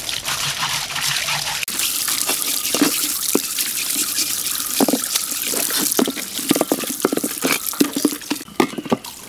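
Water from a tap running and splashing over a large glazed ceramic jar as it is rinsed and scrubbed by hand, with the water growing louder about two seconds in. A string of sharp knocks and clunks comes from about three seconds in as the jar is rocked and handled on concrete.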